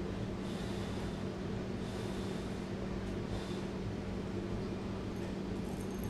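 Someone chewing a mouthful of saucy burrito, with faint mouth sounds recurring about once a second, over a steady low hum.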